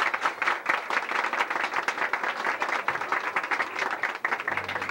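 Crowd of guests applauding, a dense run of many hands clapping. Music starts near the end.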